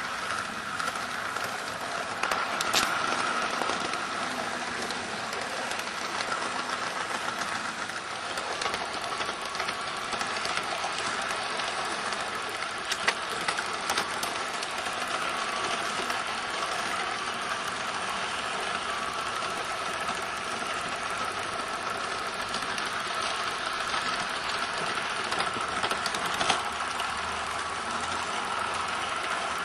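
LGB garden-scale model train running on its track, heard from close by. A steady gear whine carries throughout, with occasional sharp clicks as the wheels cross rail joints or points.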